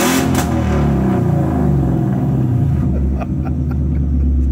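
2018–21 Mustang GT's 5.0 V8 running with its mufflers cut off and the resonators deleted. It comes down from a rev in the first couple of seconds and then settles into a steady, loud idle.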